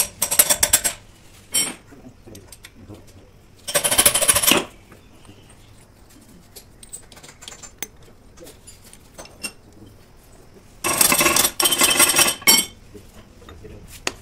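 Steel gears and parts of a power tiller gearbox clattering and clinking as they are handled. There are three bursts of clatter: one at the start, one about four seconds in, and a longer one of about a second and a half near the end, with small scattered clicks in between.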